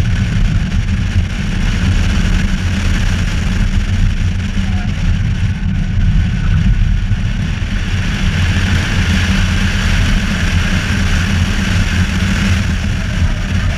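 BMW car driving at speed: steady engine and road noise, with heavy wind rumble on the outside-mounted camera's microphone.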